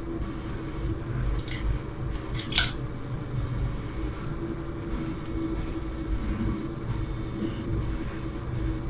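Light handling clicks of a screwdriver and electrical wire at a plastic light-switch box: two sharp clicks about a second and a half in and again a second later, over a steady low hum.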